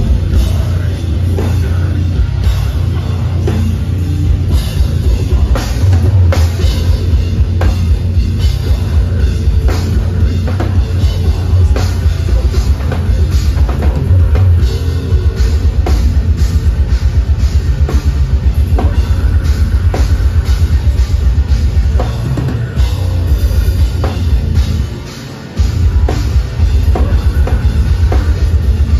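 Deathcore band playing live: loud heavy music with fast, driving drums and distorted guitars. About 25 seconds in the sound drops away for a moment, then the band comes back in.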